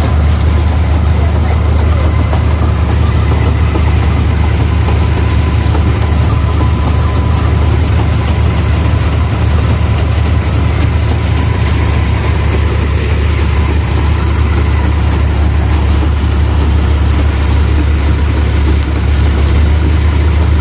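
Rice combine harvester's diesel engine running steadily at close range, a loud, deep, unchanging drone.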